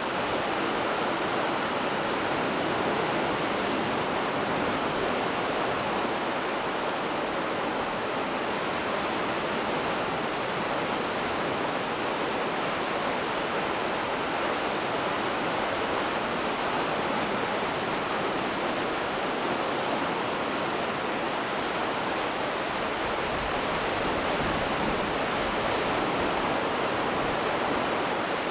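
Steady rushing noise of sea surf below the cliff, even throughout with no separate wave breaks standing out.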